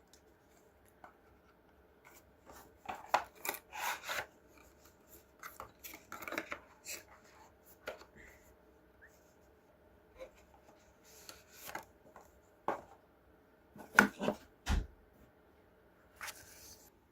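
Rustling, scraping and clicking of packaging and small parts being handled while a wireless microphone kit's cables and charger are unpacked, in irregular bursts, with a sharper knock and a dull thump near the end.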